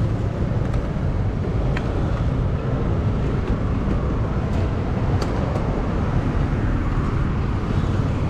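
Motorcycle riding in city traffic: a steady mix of engine and road-traffic noise.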